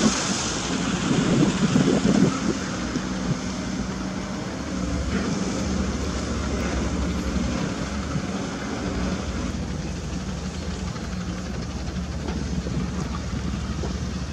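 Caterpillar 320D2 GC hydraulic excavator's diesel engine running as the machine swings and digs its bucket into wet mud. It is louder and uneven for the first couple of seconds, then settles into a steady low hum.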